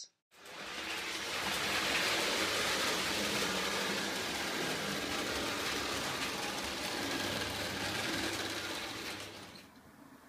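Lionel O gauge toy train running on three-rail track: a steady mechanical hum and rolling rattle of motor and wheels, fading out near the end.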